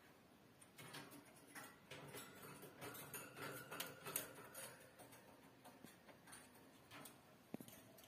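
Faint, irregular clicks and taps, thickest in the first half, from a cockatiel clambering about its wire cage, with one sharper click near the end.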